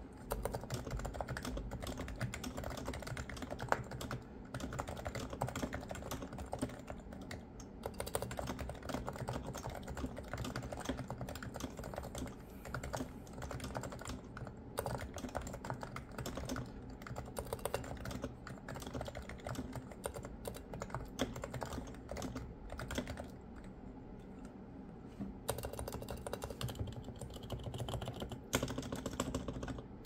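Steady fast typing on a Topre Realforce R2 PFU Limited Edition keyboard with silenced 45g Topre switches (rubber domes over springs): a dense run of soft, fluffy keystrokes, easing off briefly about two thirds of the way in.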